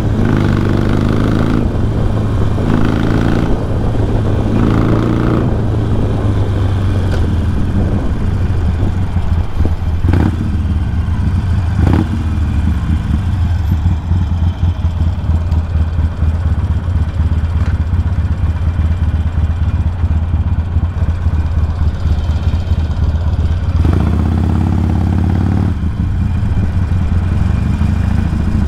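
Harley-Davidson motorcycle's V-twin engine under way. It rises in pitch several times in quick succession in the first few seconds, then runs steadier through the middle, and rises again near the end.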